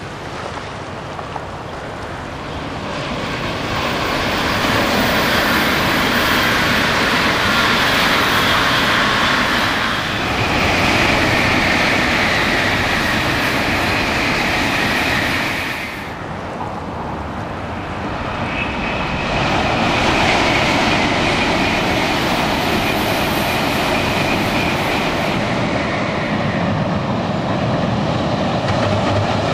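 A 300 series Shinkansen bullet train running past on a viaduct: a steady rushing of wheels and air that builds over the first few seconds, with a high ringing tone on top. About halfway through it cuts off suddenly. An electric locomotive hauling a freight train then builds up in its place, its wheels rumbling on the rails.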